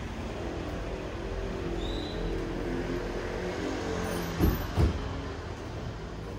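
A motor vehicle running in street traffic, with two short knocks close together about four and a half seconds in.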